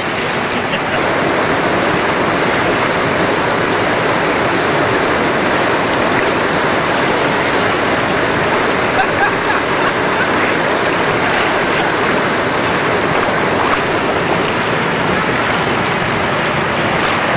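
Whitewater rapid on the Chattooga River: a steady, loud rush of water pouring over a rock drop into a foaming hole.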